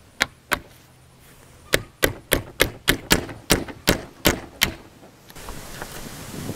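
Claw hammer striking nails in a pallet board to knock them out: two blows, then a quick run of about ten blows, roughly three a second. Near the end, wind noise on the microphone.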